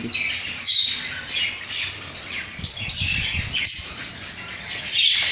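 Many budgerigars chattering at once: a constant jumble of short, high chirps and squawks.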